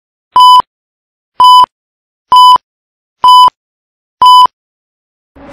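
Film-leader countdown beeps: five short, identical beeps about a second apart, one for each number counting down to one. Music begins to swell in right at the end.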